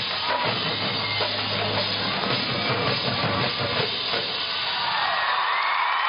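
College marching band playing its field show: brass with drumline and pit percussion. About five seconds in, the drums thin out and the brass swells into a held chord.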